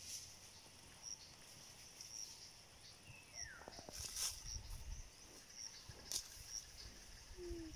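Faint rural outdoor ambience: a short, high chirp repeating about twice a second, with a single falling whistle a little after three seconds in and a few sharp clicks. Just before the end, a lower call of short falling notes begins.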